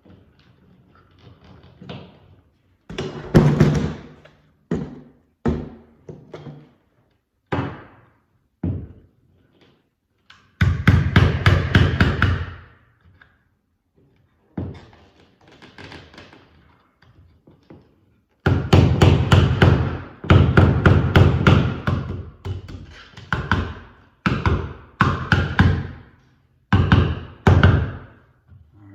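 Plastic old-work electrical box being worked into a drywall cutout: a string of separate knocks and taps, then longer stretches of rapid clicking and rasping near the middle and through the later part.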